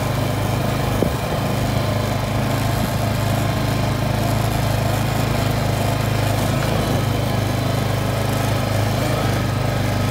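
ATV engine running steadily, a constant low hum, with one brief click about a second in.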